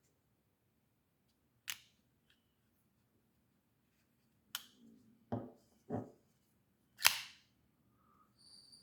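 Honey Badger folding pocket knife's blade being flicked open and snapped shut: a few separate sharp clicks, the loudest about seven seconds in, with two duller knocks between them.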